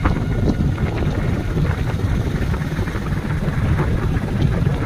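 Motorcycle being ridden along a road: a steady low rumble of the engine and wind buffeting the microphone.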